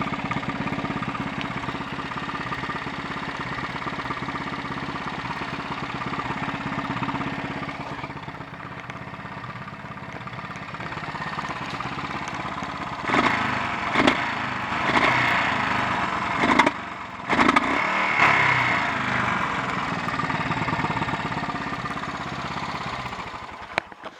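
Honda XL 350's single-cylinder four-stroke engine running under way, with a run of sharp cracks and uneven surges about halfway through. This is a sign of the misfiring the bike was brought in for. The engine sound cuts off at the very end.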